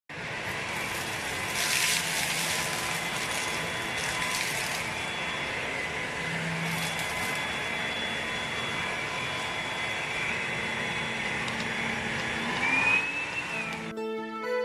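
WOMOW W18 cordless stick vacuum cleaner running: a steady motor whine over rushing air that rises briefly in pitch near the end, then stops.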